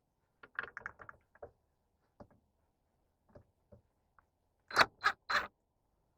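Scattered light clicks and taps, then three sharp metallic-sounding clicks about a third of a second apart near the end, as hands and tools start work on taking off a boat's dock light fittings.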